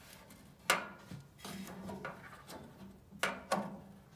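A few light metal clinks and knocks, with some rubbing, as the pellet stove's auger motor assembly and its metal bracket are worked into place over the mounting bolts: one knock under a second in, two more a little past three seconds in.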